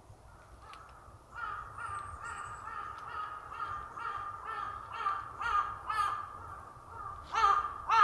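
A crow cawing in a quick run of calls, a little over two a second, for about five seconds, then two louder caws near the end.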